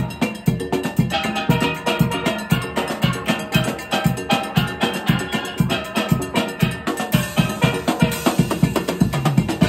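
Steel band playing live: many steel pans struck with sticks in a fast, ringing melody over a steady drum beat.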